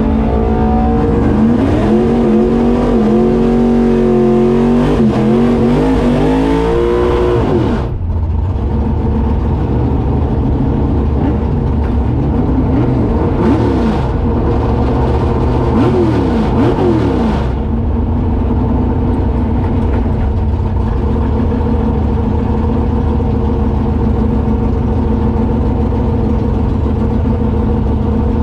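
Race-built Ford Ranger V8 heard from inside the cab, revved up and down repeatedly for the first several seconds. A few shorter blips follow, and then it settles to a steady, loud idle.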